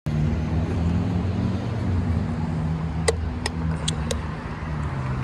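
A vehicle engine running steadily with a low hum, with four short, sharp clicks a little past the middle.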